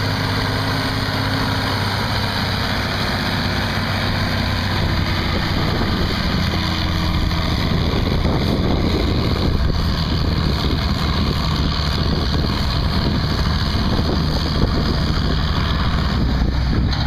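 Minneapolis-Moline G705 tractor's six-cylinder engine running hard under heavy load as it drags a weight-transfer sled, a steady, loud engine note that grows a little louder partway through.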